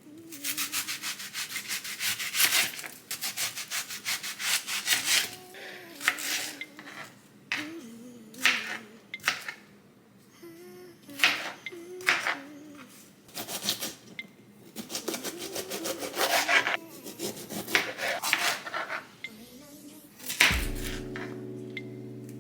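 Repeated rubbing or scrubbing strokes in irregular bursts, each with a rapid gritty texture. A steady hum starts near the end.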